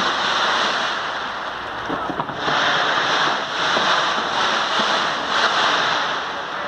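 A dense fireworks barrage: crackles and bangs merge into a continuous rushing noise that swells and eases several times.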